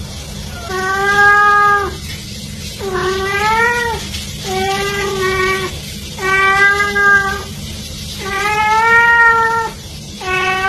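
A cat meowing over and over: five long, drawn-out meows about every 1.7 seconds, a sixth starting near the end, each held at a steady pitch.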